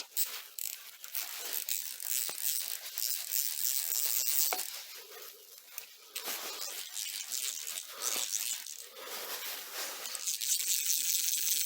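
Freshly rebuilt Snap-on GM-70-M quarter-inch drive 30-tooth ratchet with a socket on, its pawl clicking in rapid runs as it is worked back and forth, with short pauses about five and nine seconds in.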